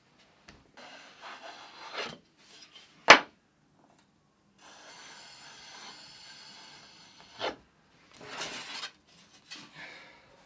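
Wooden guitar tops and body blanks being handled on a workbench: scraping and rubbing of wood on wood, a sharp knock about three seconds in, a steady rubbing for a couple of seconds in the middle, and a second knock after it.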